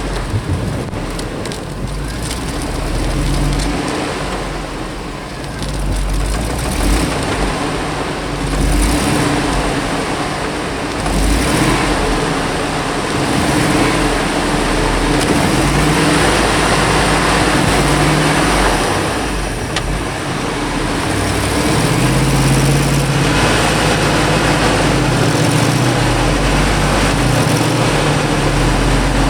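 Chevy pickup truck's engine revving in repeated surges under a loud, steady rush of noise, as the truck, buried in a snow drift, works to get itself out.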